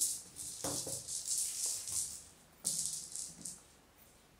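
A small rattle-ball cat toy rolling and tumbling across a tile floor as a kitten bats it. It rattles in two irregular spells, with a light knock about a second in.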